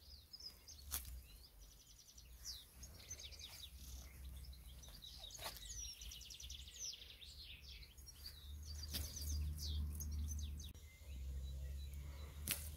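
Wild birds singing in chirps and rapid trills, over a low rumble that grows louder in the second half, with a few sharp clicks.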